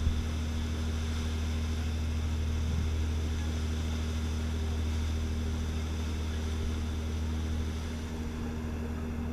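Ferry under way: its engine gives a steady low drone, over the rushing hiss of white water churning along the hull.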